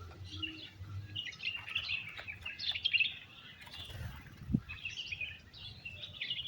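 Wild birds chirping, many short overlapping high calls with no pause, and a soft low thump about four and a half seconds in.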